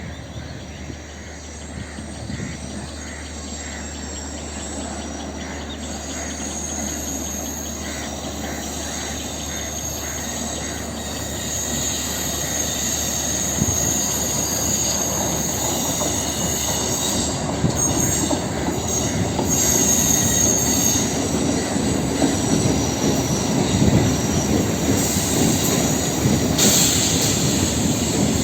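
Electric multiple unit (EMU) local train running on the track, growing steadily louder as it approaches, with a high whining squeal of the wheels on the rails.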